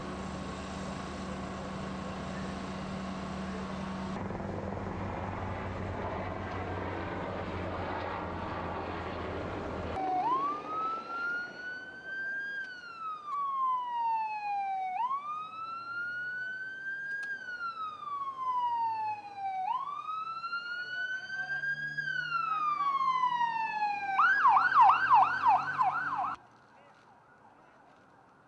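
A steady mechanical drone, likely a helicopter passing over, for about ten seconds. Then an ambulance siren wails slowly up and down three times, each rise quick and each fall slow. It switches to a fast yelp of about four cycles a second and cuts off suddenly near the end.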